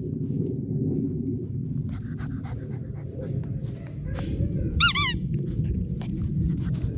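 Puppies shuffling and scuffling over a steady low rumble, with a brief burst of high squeaky yelps from a puppy about five seconds in.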